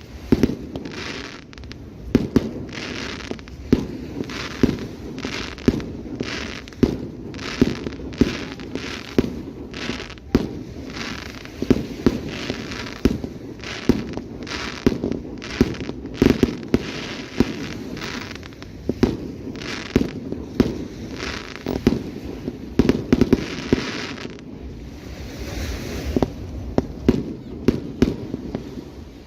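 Fireworks display: a rapid, irregular run of aerial shell bursts and bangs, several a second, over a steady crackle and rumble, thinning out briefly about 25 seconds in before picking up again.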